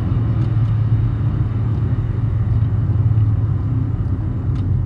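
Steady low drone of a car cruising along a highway, engine and tyre noise heard from inside the cabin.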